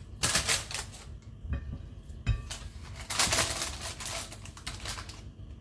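Baking paper rustling and crinkling under hands pressing marinated meat into a paper-lined metal dish, in two bursts, the longer one near the end, with a single knock a little past two seconds in.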